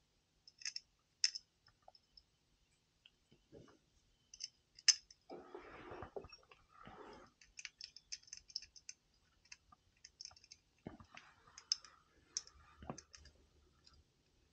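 Faint, scattered metallic clicks and light scraping as an Allen key turns the screws of a Riello oil burner's fuel pump strainer cover during refitting.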